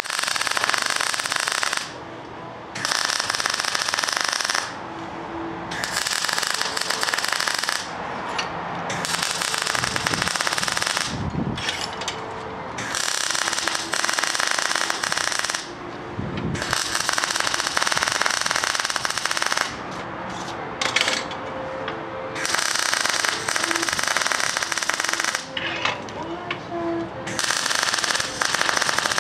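MIG welding arc on steel crackling and sputtering in a string of short welds, each one to three seconds long, with brief pauses between them.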